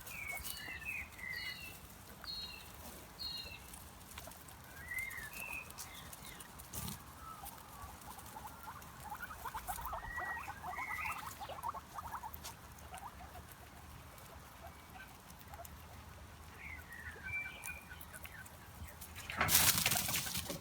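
High chirping squeaks from small animals, short notes that bend up and down and come in quick runs, over light pattering. A loud rushing noise comes in about a second before the end.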